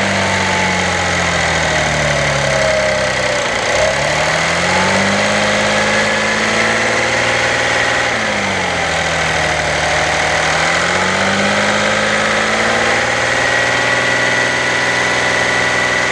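2016 Audi 3.0 TDI V6 diesel engine running while its revs are raised and dropped about three times between idle and a fast idle, then held, in the range around 1500 rpm where its timing chain rattles. The rattle is suspected to come from a clogged or restricted timing-chain tensioner.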